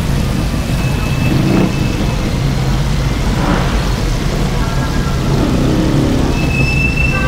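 Road traffic: a steady low rumble of vehicle engines, with a thin high tone near the end.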